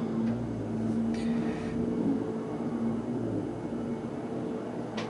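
Steady low machine hum in the workshop, with faint handling noises and a small click near the end as hands press the glued blocks against the segmented rings.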